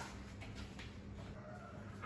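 Faint handling noises of containers and packets being set on a lined cupboard shelf: a sharp knock at the start, then light rustling and soft taps.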